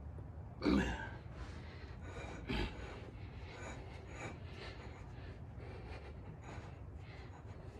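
A man's breaths of effort as he levers a heavy lathe chuck off its spindle with a wooden board: two short, louder ones under a second in and about two and a half seconds in, with light knocks and scrapes of handling in between.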